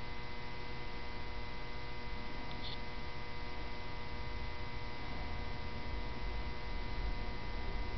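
A steady electrical hum: several fixed tones over a constant low rumble, unchanging throughout.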